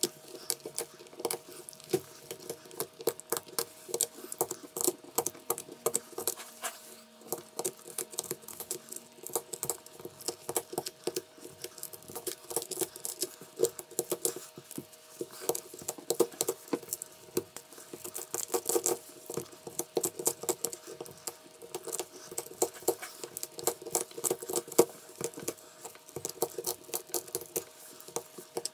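A hand tool scraping and picking at a phone's cracked glass back: a dense run of small, irregular clicks and ticks over a steady faint hum.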